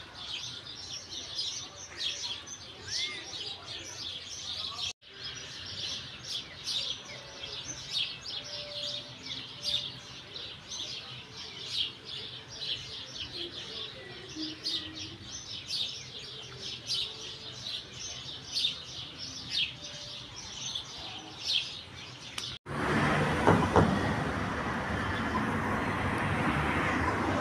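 Bird chirping rapidly, a quick run of short high calls several times a second. About twenty-three seconds in it cuts to a louder, steady rushing noise.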